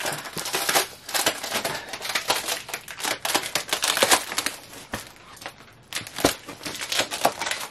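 Clear plastic wrap and packing tape on a cardboard box crinkling and tearing as the box is cut open with scissors. It is a dense run of irregular crackles, easing off a little in the second half, with a few sharper clicks.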